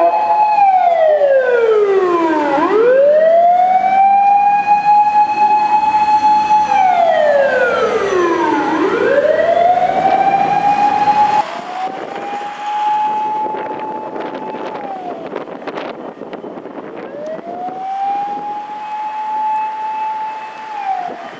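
Fire rescue truck's motor siren wailing. Each cycle winds up in pitch, holds a high steady note for a few seconds, then falls away. About halfway through it becomes suddenly quieter and keeps wailing through more cycles.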